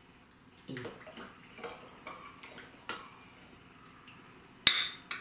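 Metal measuring spoon scooping salt and stirring it into a glass bowl of water: a string of soft clinks and small splashes, then a sharp clink of the spoon on glass near the end.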